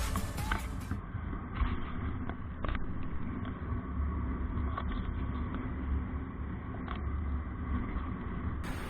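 Motorcycle riding noise picked up by a helmet-mounted action camera sealed in its waterproof case: a steady low engine hum and road and wind rumble that sounds dull and muffled, with a few faint knocks. The airtight case is what muffles the camera's microphone. The tail of background music fades out in the first second.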